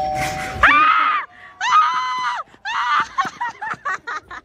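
A bell tone dies away about half a second in, then a woman screams three times in long high-pitched shrieks, followed by a run of short yelps as she runs off in the ring-and-run game.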